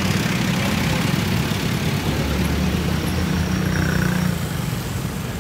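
A passenger jeepney's diesel engine running at idle close by, a steady low rumble that eases off about four seconds in as the jeepney moves past.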